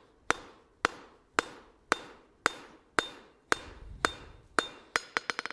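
Hand hammer striking a hot steel tong blank on an anvil, about two blows a second, each with a short metallic ring, then a quick run of lighter taps near the end. The blows are knocking the sharp corners off the tong's handle.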